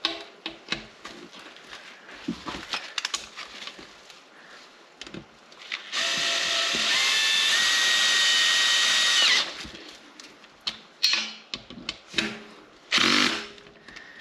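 Cordless drill with a long extension driving one of a BBS LM split wheel's assembly bolts home for about three and a half seconds, then stopping sharply: running the bolt in to roughly 8–10 Nm as a pre-torque. Small clicks and knocks from handling the bolts and tools come before and after it.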